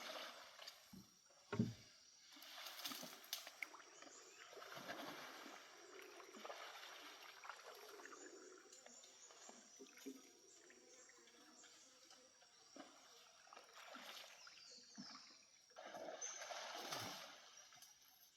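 Faint, irregular sloshing and splashing of water, with a sharper knock about one and a half seconds in.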